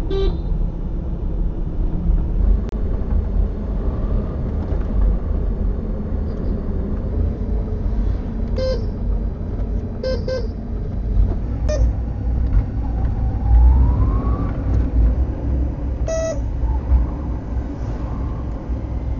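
A car driving through traffic: a steady low rumble of road and engine, with several short horn toots from vehicles around it. A rising whine comes about two-thirds of the way through.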